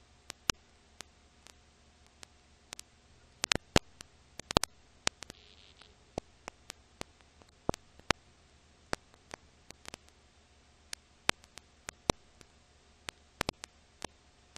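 Irregular crackle and sharp pops over a steady hiss and low hum: surface noise on the otherwise silent soundtrack of an old film transfer. The pops come at uneven spacing, several a second, with a cluster of louder ones about three and a half to four and a half seconds in.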